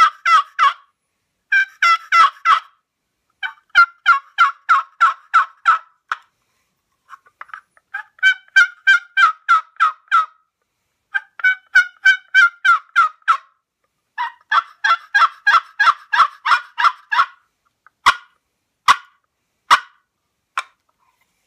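A short wooden box turkey call, an Alaskan cedar box with a black walnut lid, played by stroking the lid across the box. It gives about six runs of quick turkey yelps, roughly four or five notes a second, with short pauses between runs, and near the end four single sharp clucks spaced about a second apart.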